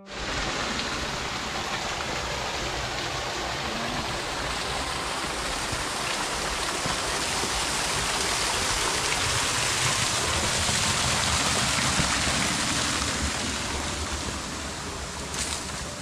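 Running water of a small forest stream and cascade, a steady rushing that grows louder toward the middle and fades near the end.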